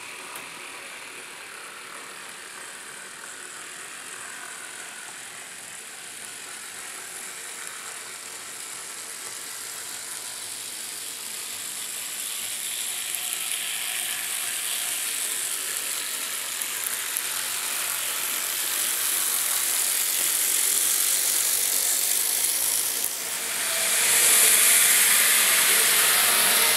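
N scale model train, a Bachmann Spectrum Santa Fe F7 locomotive pulling Con-Cor passenger cars, running along the track: a steady mechanical running noise of motor and wheels that grows louder as the train approaches and is loudest as the cars pass close near the end.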